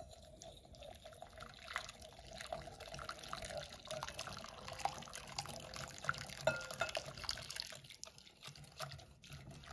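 Boiling water poured in a thin, steady trickle from a glass measuring jug into a glass bowl of gelatin powder as a wire whisk stirs it, with a few light clicks of the whisk against the glass.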